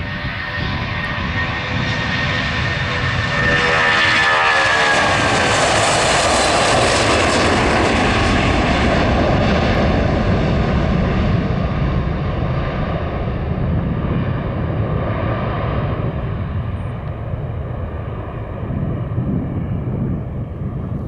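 Boeing 757-200's twin jet engines at take-off thrust as the airliner rotates, lifts off and climbs away. A high whine falls in pitch as it passes. The engine noise is loudest a few seconds in and then slowly fades as it climbs out.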